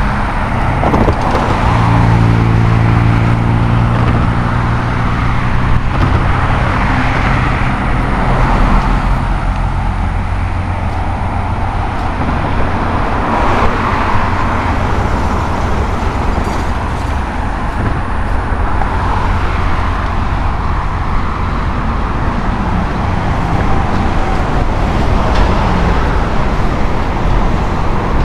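Road traffic going by on a busy multi-lane road, cars passing in a steady wash of tyre and engine noise. A vehicle engine hums at a steady low pitch through the first ten seconds or so.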